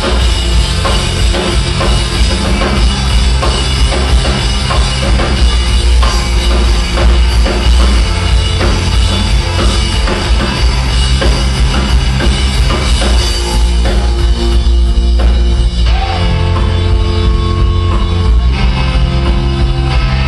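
Rock band playing live and loud, with electric guitar over a pounding drum kit. Past the middle the high, cymbal-heavy part of the sound thins out for a few seconds, then comes back.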